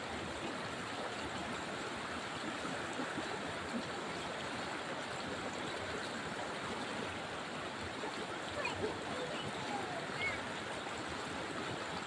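Fast-flowing river rapids rushing steadily over rocks. Faint distant voices call out briefly about two-thirds of the way through.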